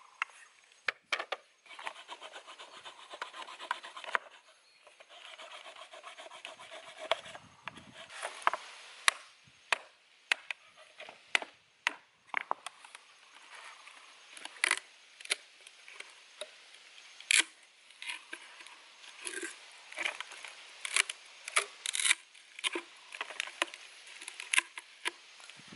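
A length of bamboo being worked by hand: a dry scraping and rubbing on the wood for the first several seconds, then a run of sharp, irregular knocks as a stone strikes the bamboo.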